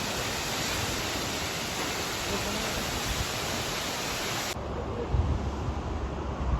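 Steady broad rushing of a large waterfall. About four and a half seconds in it cuts off abruptly and gives way to a low rumble.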